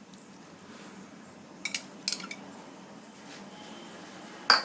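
Spoon and dishware clinking: a few light clinks, then one sharper, louder clink near the end.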